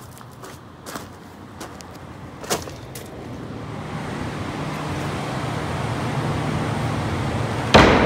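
Footsteps on gravel, then a construction heater running steadily with a low hum, growing louder as the basement door opens. A loud thump near the end.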